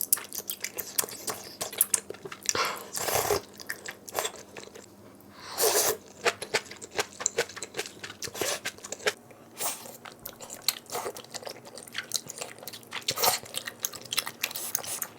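Close-up eating sounds: a person chewing and crunching food, plausibly malatang, with many short crisp crunches and a few longer, noisier mouth sounds.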